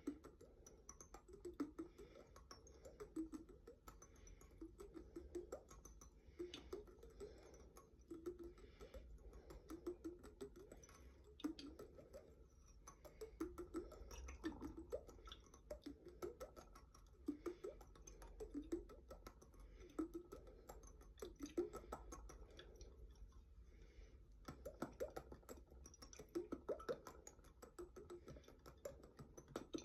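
A glass jar with water in it being tapped and handled: many light, irregular taps and clicks, with short watery blips that bend in pitch.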